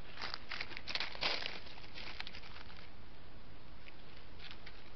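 Dry leaf litter and twigs crackling and rustling under the paws of a golden jackal walking away, in a flurry of short crackles over the first three seconds and a few faint ones near the end, over a steady hiss from the trail camera.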